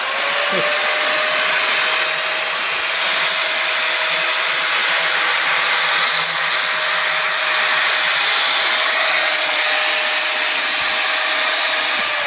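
Angle grinder with a sanding disc running at full speed against a lemon-tree branch, grinding off the bark: a steady high motor whine over a loud rasping hiss. Right at the end the whine starts to drop as the grinder is switched off and spins down.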